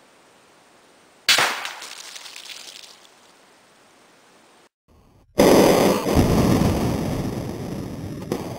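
Two sharp reports from a .308 big-bore air rifle firing 125-grain hollow points: one about a second in, and a second, louder one about halfway through that fades away slowly.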